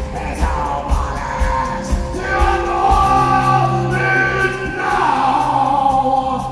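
Post-punk band playing live, a male singer holding long, wavering sung notes over the band. A steady kick-drum beat stops about two seconds in, leaving a low held bass note under the voice.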